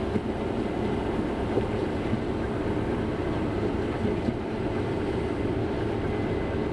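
Combine harvester running steadily, a constant machinery drone heard through a microphone worn by the operator.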